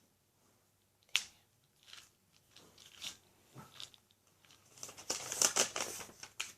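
A wooden Japanese puzzle box being handled and its panels pushed, giving scattered sharp clicks and knocks, then a dense stretch of rapid rattling for about a second and a half near the end.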